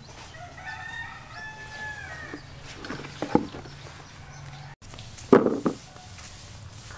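A rooster crowing once, one drawn-out call that trails off, followed by a few sharp knocks, the loudest about five seconds in.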